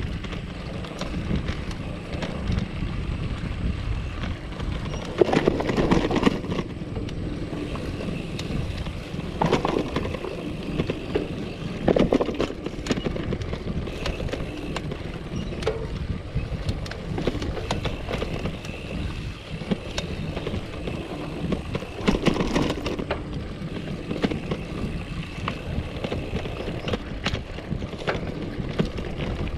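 Polygon Bend R2 gravel bike ridden over a bumpy dirt path: a continuous rumble of tyres and wind on the camera microphone, with frequent clicks and rattles from the bike. Several louder rattling jolts come as it hits bumps.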